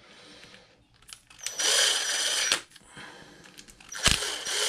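Cordless power driver whirring twice, about a second each time, driving screws back into a plastic RC truck skid plate; the second run starts with a sharp knock.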